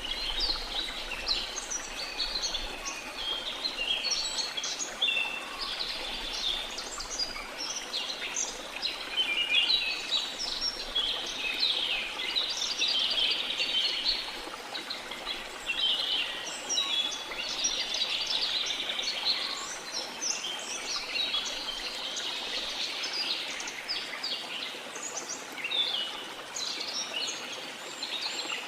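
A chorus of many birds chirping and trilling without pause, over a steady rush of falling water.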